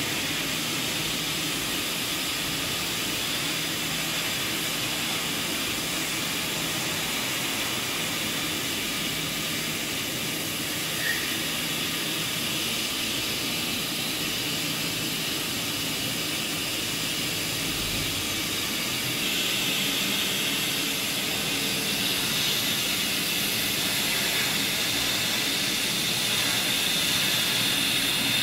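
Hot-air welding machine running steadily: a hiss from its hot-air blower over a low, steady hum while it welds edge tape onto a panel of an inflatable surfboard. The hiss gets a little louder about two-thirds of the way through.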